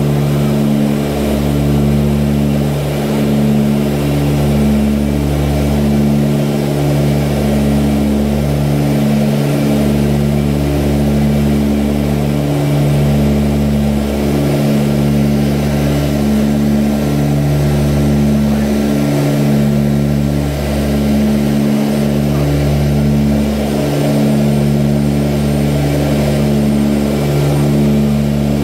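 Ilyushin Il-18D's four Ivchenko AI-20 turboprop engines and propellers heard inside the cabin in flight: a steady low drone of several stacked tones that swells and dips every second or two.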